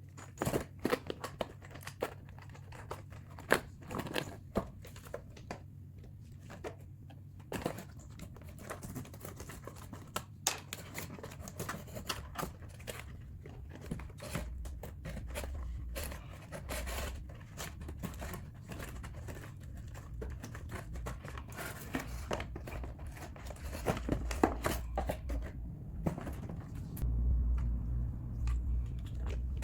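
Packaging being opened and handled by hand: crinkling and tearing with many scattered clicks and taps, and a low rumble of handling noise that grows near the end.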